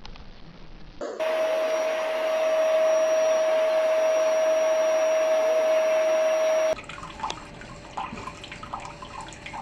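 A small motor whirring steadily with one constant hum. It starts about a second in and cuts off suddenly after about five and a half seconds. Faint clicks and taps follow.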